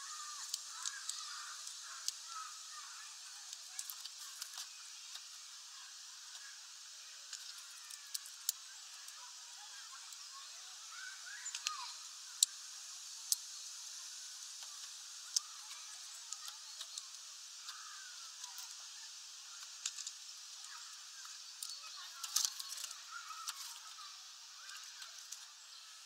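A hawfinch cracking sunflower seeds on a feeder tray: irregular sharp clicks and cracks from its bill, several in quick succession at times.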